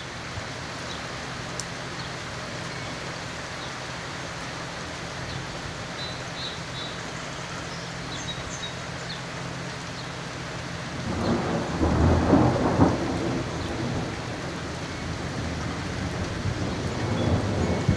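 Steady rain falling on wet pavement and gravel. A roll of thunder swells up about eleven seconds in and lasts a couple of seconds, with a smaller rumble near the end.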